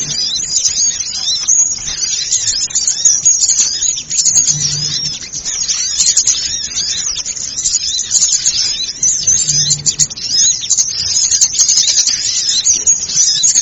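Many small birds chirping and twittering at once, a dense, agitated chorus of the kind used as a lure call for small songbirds. A short low hum sounds about every five seconds beneath it.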